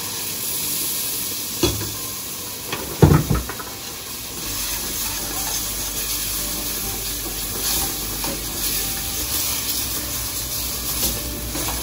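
Sauce base of flour cooked in oil sizzling and bubbling in a hot pot as blended poblano mixture is added and stirred in. A couple of knocks of the stirring utensil against the pot, the loudest about three seconds in.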